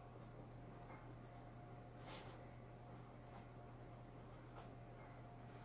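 Faint scratching of a pen writing on paper, in short irregular strokes, over a steady low hum.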